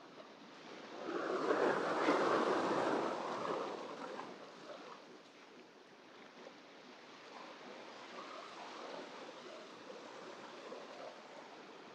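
Small waves breaking and washing up a sandy shore among rocks. One louder wash swells about a second in and fades over a few seconds, followed by softer surf.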